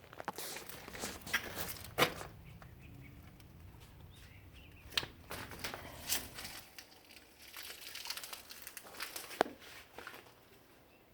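Irregular clicks, taps and rustling, with a few sharper knocks about two, five, six and nine and a half seconds in.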